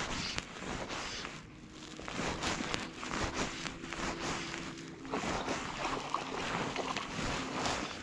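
Water splashing and lapping close to the microphone as a trout is brought to the landing net beside a float tube, with wind rushing on the microphone. A faint steady hum sits underneath from about two to five seconds in.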